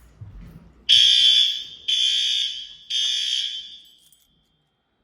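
Smoke alarm sounding three long, high-pitched beeps in a row, about one a second: an alarm set off during a fire-alarm test.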